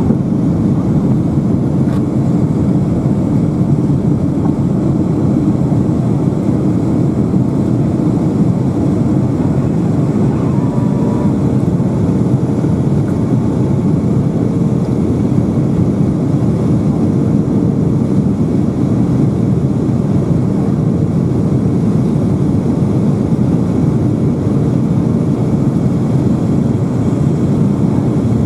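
Steady cabin roar inside a Boeing 757-200 in flight: engine and airflow noise heard from a window seat over the wing. A faint steady hum sits on top of it for a while near the middle.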